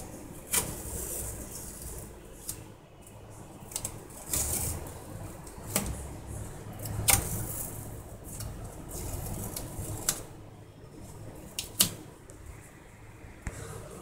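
Printed nylon parts being handled: irregular sharp clicks and taps of hard plastic, about ten across the stretch, over a low steady hum.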